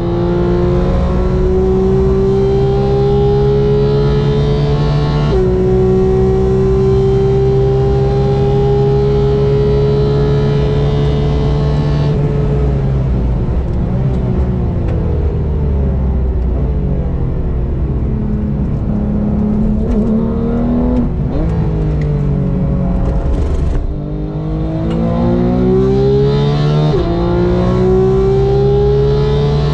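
A performance car's engine driven hard on a track. The revs climb in one gear, drop with an upshift about five seconds in, and climb again. Near the middle the throttle lifts, and the note turns rough and uneven, with quick blips on the downshifts. It then pulls hard again, with another upshift near the end.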